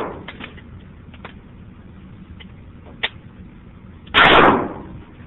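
A revolver fired once, about four seconds in, the shot ringing briefly off the walls of an indoor range. A single faint click comes about a second before it, and the echo of a previous shot dies away at the start.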